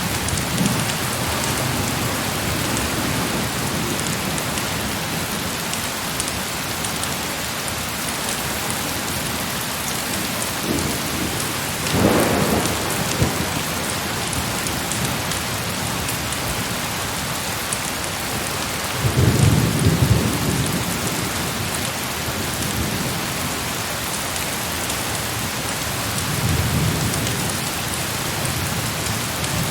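Heavy rain falling steadily, with low rolls of thunder about twelve seconds in, again around nineteen to twenty seconds (the loudest) and more softly near the end.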